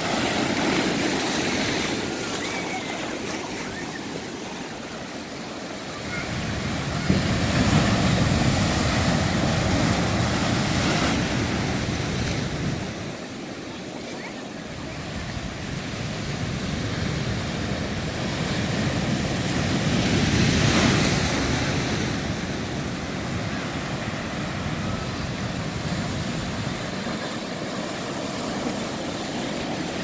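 Big surf breaking over black lava rocks, the rushing wash of foam swelling and ebbing as each wave crashes in and drains back between the rocks. It is loudest twice, about a third of the way in and again around two thirds, with a lull between.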